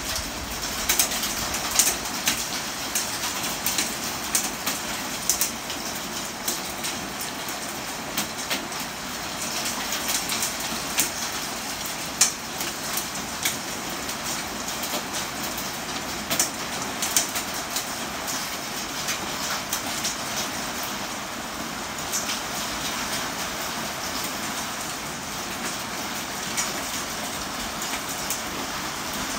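Steady rainstorm, with many individual drops ticking sharply on nearby surfaces.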